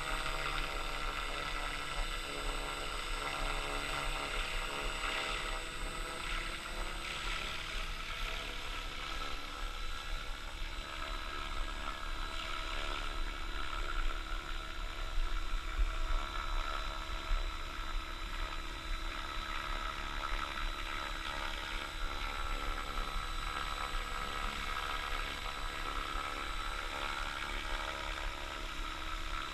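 Radio-controlled helicopter UAV flying with a 1.5 kg payload slung beneath it, its main rotor and power unit running with a steady whine.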